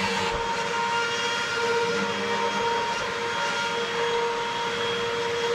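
Upright vacuum cleaner running steadily, its motor giving a constant whine over a rushing of air.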